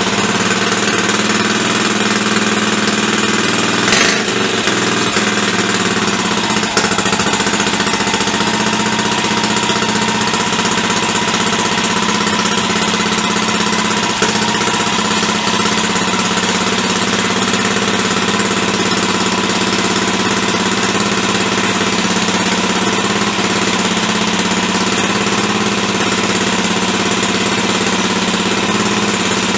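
BSA B44 441 cc single-cylinder four-stroke engine running steadily on a little throttle just after being kick-started, its carburettor not yet set up.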